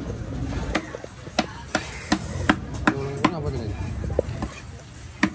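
Large knife chopping tuna flesh into chunks on a wooden chopping block, a sharp chop about every half second.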